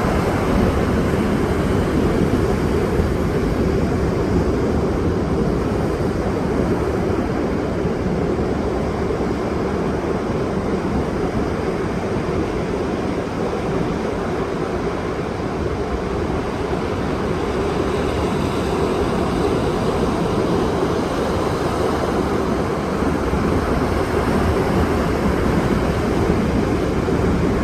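Ocean waves washing onto a shore, a steady, continuous surf with no separate crashes standing out.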